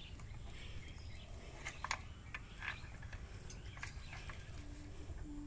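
Faint, scattered bird chirps over a steady low background rumble, with a couple of short low hums near the end.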